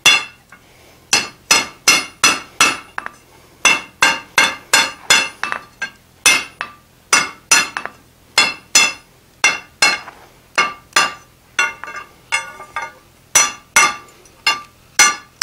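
Light hand-hammer blows on the edge of a red-hot iron bar held on an anvil, chamfering its corners to take off the rough edges. A steady run of ringing metallic strikes, about two to three a second, with a few short pauses.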